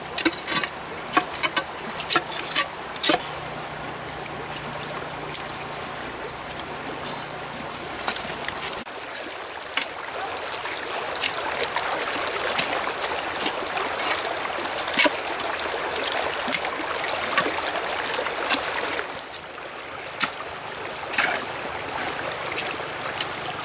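Water running in a small stream, with scattered knocks and scrapes of digging into wet mud and stones, thickest in the first few seconds, and a thin steady high-pitched whine above.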